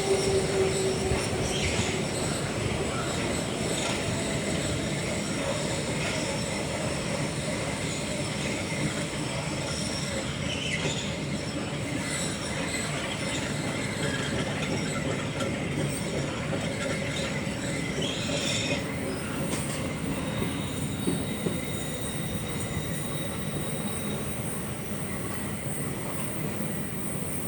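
A DB Class 472 S-Bahn electric multiple unit running, heard from inside a passenger car: a steady rolling rumble with high-pitched wheel squeals coming and going, twice in short bursts and once as a thin whine lasting a few seconds.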